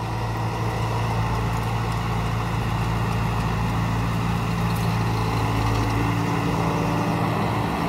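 Diesel tractor engine running steadily under load while it pulls a 9-foot PDC super seeder, with the seeder's rotor churning the soil during sowing. It is a constant low drone.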